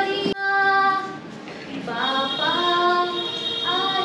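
A woman singing a melody in long held notes with glides between them, broken by an abrupt cut shortly after the start.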